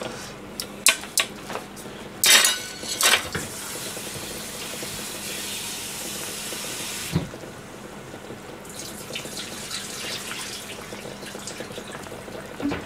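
Kitchen tap running into a sink for about four seconds, then turned off abruptly about seven seconds in: parboiled daikon and carrot being rinsed in cold water. A couple of sharp pot clatters come just before the water starts.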